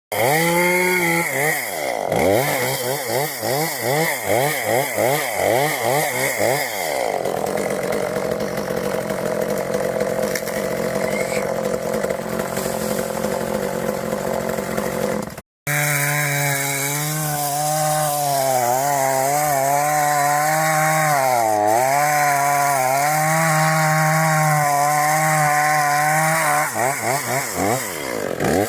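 Gas chainsaw running and cutting into oak, its engine revving up and down quickly at first, then running steadily. It cuts out abruptly about halfway and resumes at a steady pitch that dips repeatedly as the saw loads in the wood.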